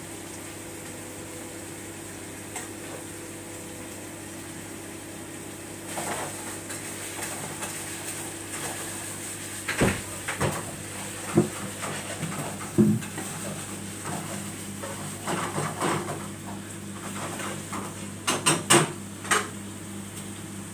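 Metal tongs clinking and scraping against a frying pan and a metal tray as chicken strips are moved into the pan: scattered sharp clatters from about halfway, with a quick cluster near the end. A steady mechanical hum runs underneath.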